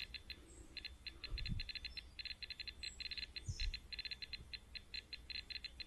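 Ecotest Terra radiation dosimeter chirping out short high beeps, several a second at irregular spacing, one for each detected gamma quantum; the radiation background reads about ten times the norm. Two faint low thumps come from handling.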